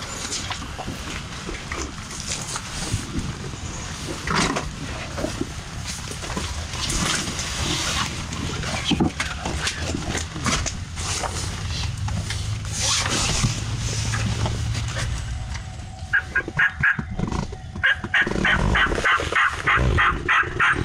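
Rustling and knocking of people moving through leaf litter and settling inside a fabric ground blind. Near the end comes a loud, fast, evenly spaced series of turkey calls, about five notes a second.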